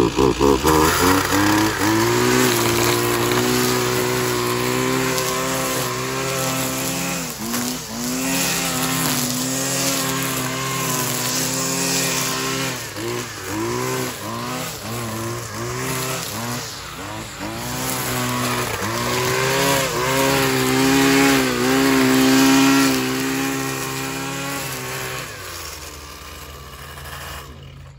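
Husqvarna 129L 27 cc two-stroke string trimmer running at full throttle as its line cuts weeds and grass. The pitch sags and recovers again and again under load, the bogging down the owner puts down to a carburettor that needs adjusting. Near the end the engine drops away.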